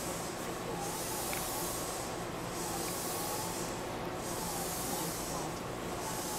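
Steady hiss and hum inside a stopped electric commuter train, with a faint tone that wavers up and down. This is the noise of the train's on-board ventilation and equipment running while it stands at the platform.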